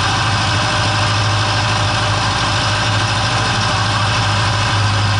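John Deere loader tractor's diesel engine running steadily, a constant low hum.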